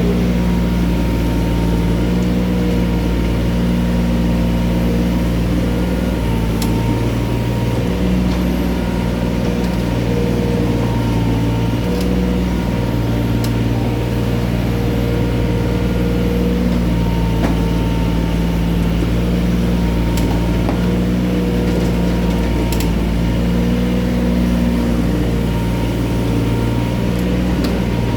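Mini excavator's diesel engine running steadily, its note shifting up and down every few seconds as the machine works, with a few sharp knocks scattered through.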